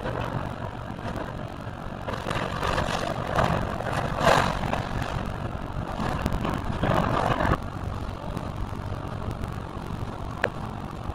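Kobelco excavator's diesel engine running steadily as its demolition grapple tears into a wood-framed building. Bursts of crunching and splintering timber and falling debris come over the engine, loudest about four seconds in and again around seven seconds, with a single sharp crack near the end.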